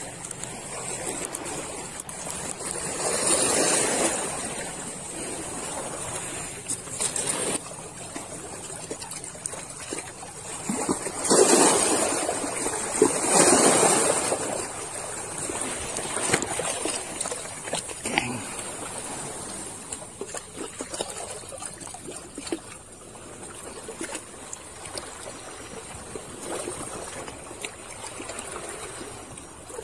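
Small sea waves washing and splashing against shoreline rocks, swelling louder a few times.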